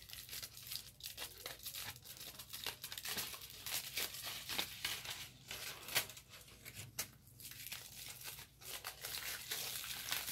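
Aluminium foil being peeled open and crumpled by hand: a dense, continuous crinkling and tearing, with one sharper crackle about six seconds in.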